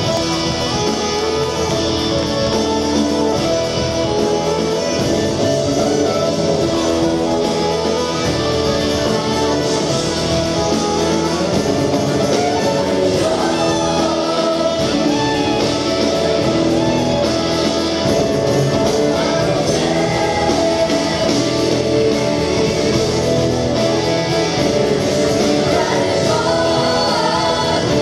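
Live gospel music: a choir singing over an acoustic guitar and a band, heard steadily and loud from the audience.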